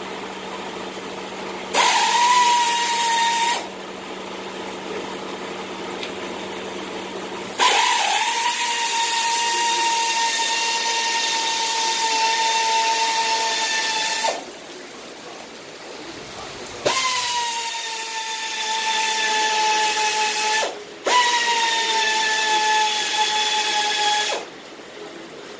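Handheld power tool whining in four runs, one short, one long and two medium. Each run dips in pitch as it spins up, then holds a steady tone.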